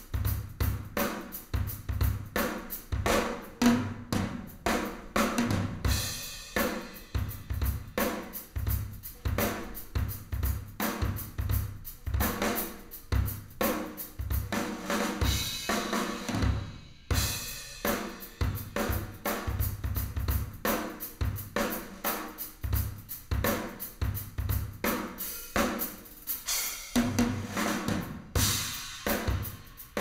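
Solo drum kit recording played back on a hi-fi system: a steady groove of kick drum and snare with hi-hat, cymbal crashes at intervals and a short break a little past halfway.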